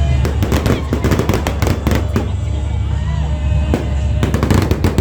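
Fireworks crackling and popping in rapid clusters, through most of the first two seconds and again near the end, over loud background music.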